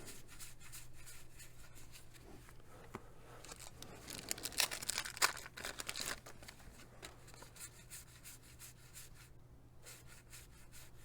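Cardboard baseball cards rubbing and flicking against each other as a stack is flipped through by hand, with small soft ticks throughout. A louder spell of rustling runs from about four to six seconds in.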